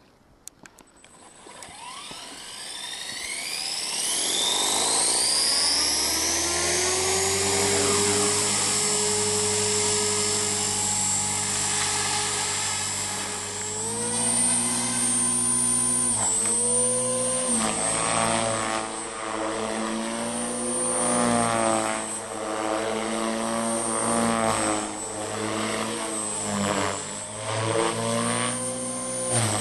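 Align T-Rex 450 SE electric RC helicopter spooling up: the Scorpion brushless motor and rotor whine rises in pitch over about four seconds and then runs steady. From about halfway on, the pitch and level rise and fall again and again as it flies.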